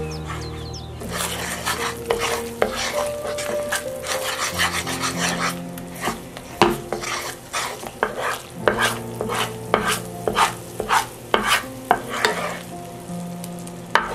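A wooden spatula stirring and scraping a thick spicy butter and hot pepper paste sauce around a nonstick frying pan, in many quick, irregular strokes. The sauce sizzles over the heat.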